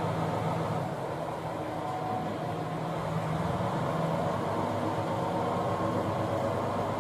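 JR KiHa 120 single-car diesel railcar's engine running with a steady drone as the railcar moves slowly along the station track, its pitch shifting slightly about three seconds in.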